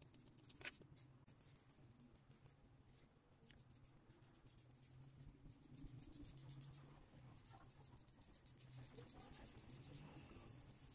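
Faint scratchy scrubbing of a small wire brush on a greasy threaded bicycle bottom bracket cup, in runs of quick back-and-forth strokes, busiest in the second half.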